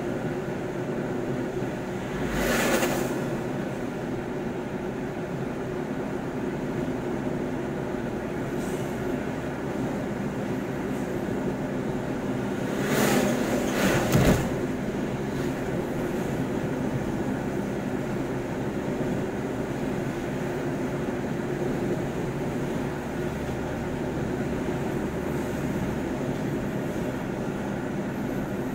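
Steady road and engine noise heard inside a moving vehicle's cabin, with a low, even hum. A short louder rush about two and a half seconds in, and a bigger whoosh about thirteen to fourteen seconds in as an oncoming truck passes close by.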